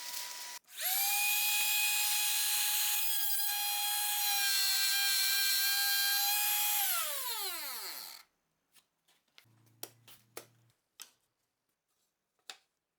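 Trim router switched on, quickly reaching a steady high-pitched whine, running for about six seconds, then switched off and winding down with falling pitch. A few light clicks and knocks follow near the end.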